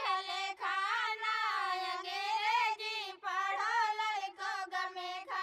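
A single high voice singing alone in long, wavering, held notes, phrase by phrase, with short breaks between phrases.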